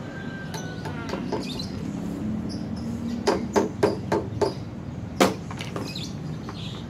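Sharp plastic taps from a Blast Box toy game: a run of about six quick knocks about halfway through, then one louder knock near the end.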